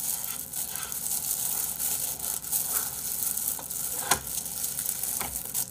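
Thin disposable plastic gloves crinkling and rustling as gloved hands squeeze and pack a rice ball, with a few sharper crackles about four and five seconds in.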